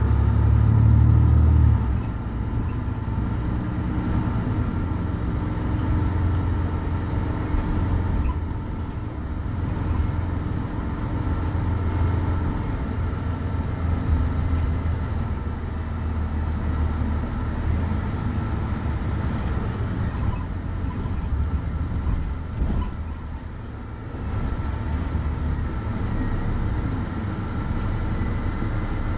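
Mercedes-Benz Citaro C2 city bus's OM 936 h horizontal six-cylinder diesel idling while the bus stands at a stop: a steady low rumble, a little louder for the first two seconds, with a faint steady whine above it.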